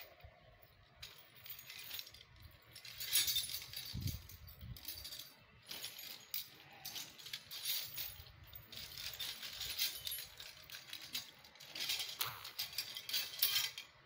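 A bag rustling and small metal parts clinking in bursts as satellite dish mounting hardware is rummaged out for assembly.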